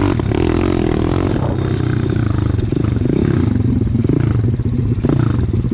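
Pit bike's small four-stroke single-cylinder engine running at low, steady throttle while ridden over a rough dirt trail, with rattles from the bike and a knock about five seconds in.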